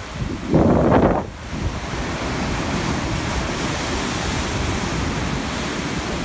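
Ocean surf breaking on rocks and rushing through foam, with a loud surge about half a second in that settles into a steady wash. Wind gusts on the microphone.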